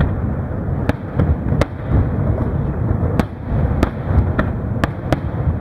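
Aerial firework shells bursting in a dense barrage: a continuous low rumble of booms, broken by about nine sharp cracks at uneven intervals.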